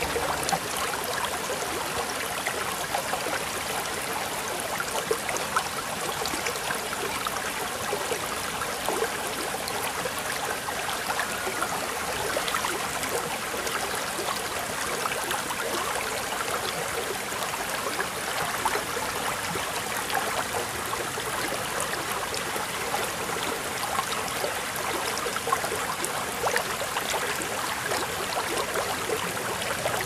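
Small pondless waterfall running: water falling in a thin sheet down faux-rock steps and splashing into a stone bowl that overflows onto pebbles, a steady splashing trickle.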